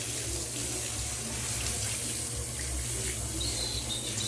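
Water running steadily, splashing over a wet puppy and onto a tiled floor.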